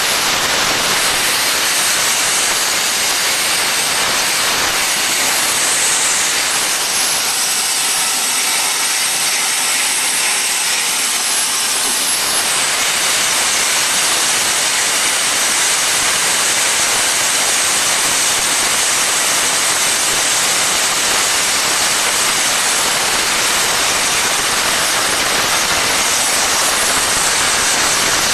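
Hypertherm MaxPro200 plasma torch cutting 25 mm Hardox steel plate at 200 amps. The plasma arc and its air jet make a loud, steady hiss, with a thin high whine on top.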